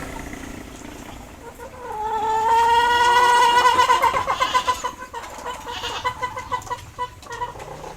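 Rooster crowing: one long call that starts about two seconds in and breaks into rapid pulses toward the end.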